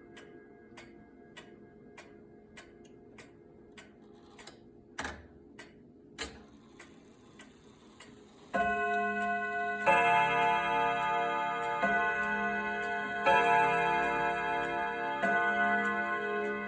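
F.M.S. (Mauthe) box regulator wall clock ticking steadily, with two louder clicks from the movement partway through. About eight seconds in it begins its bim-bam strike on three long tuned chime rods: a single note, then a two-note chord, repeated in pairs, each strike ringing on into the next.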